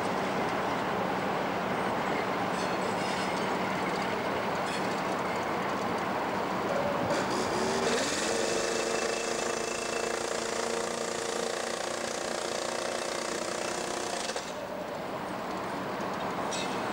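Diesel freight locomotives moving through a yard, with a steady rumble. About seven seconds in, a Class 60 locomotive's Mirrlees diesel engine note rises in pitch as it passes close below, holds steady, then cuts off sharply about fourteen seconds in.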